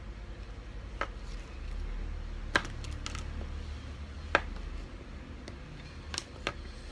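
Small plastic building bricks clicking and clattering as they are handled: about six short, sharp clicks, spread unevenly, over a low steady rumble.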